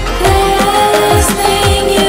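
Background music: held tones over a deep, regular beat whose notes drop in pitch on each hit.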